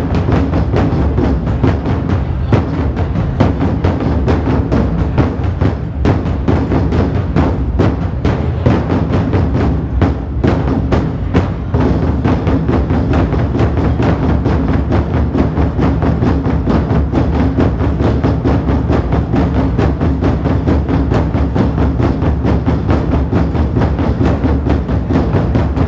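An ensemble of large Chinese drums (dagu) beaten with sticks, playing a fast, dense, continuous rhythm.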